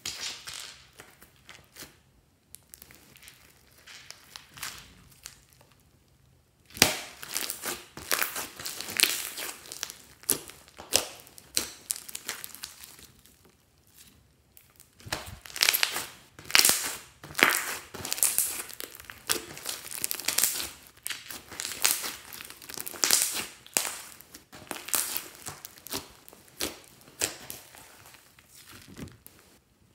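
Slime being kneaded and pressed by hand, giving wet squishing and crackling in quick, irregular strokes. It is sparse and quiet for the first several seconds, busy from about seven seconds in, with a brief lull midway.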